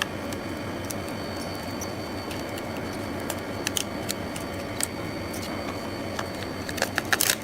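LCD freezing separator machine running with a steady hum. Small clicks and taps of a tool prying at the cold screen glass are heard over it, with a quick run of sharp clicks near the end.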